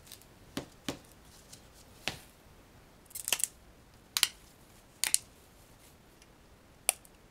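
Box-jointed dice tower kit pieces clicking and knocking together as they are handled and pressed into place. About seven short, sharp clicks, the loudest between three and five seconds in.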